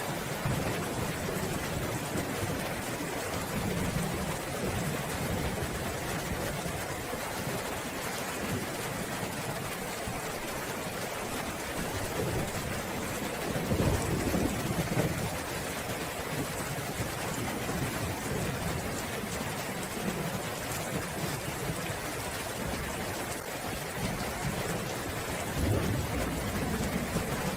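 Steady heavy rain with rolling thunder: low rumbles swell up about halfway through and again near the end.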